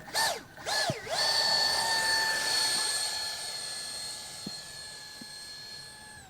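Electric ducted fan of a mini RC jet: two quick revs up and down, then held at a steady high whine at launch, slowly fading as the jet flies away.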